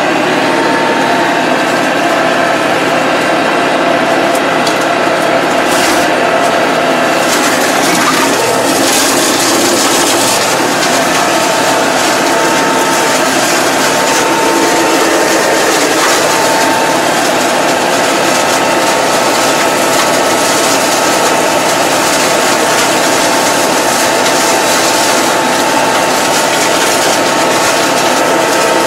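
Massey Ferguson 2220 tractor heard from the cab, its engine running steadily under load while its mower cuts through tall grass and weeds. A steady mechanical whine sits over the engine noise.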